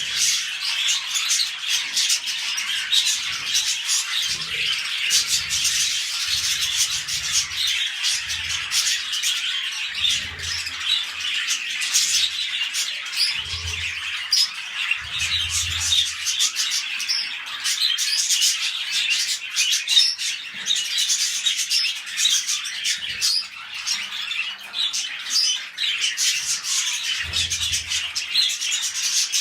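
Budgerigars chattering and squawking in a continuous warble of rapid, scratchy chirps, with short low rumbles underneath now and then.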